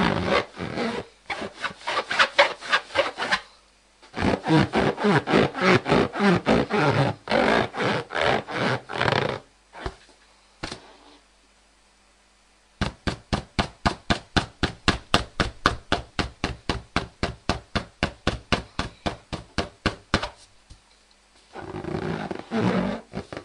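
Rubber balloon being rubbed, giving rapid rhythmic squeaks at about four strokes a second. The strokes come in runs with brief pauses, the longest a few seconds about ten seconds in.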